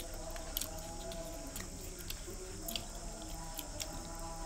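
Mouth sounds of eating rice noodles, chewing and slurping, with a few sharp clicks of wooden chopsticks against the bowls, over soft background music.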